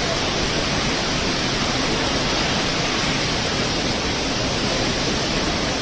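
Strong cyclone wind and rough sea making a steady, loud rushing noise.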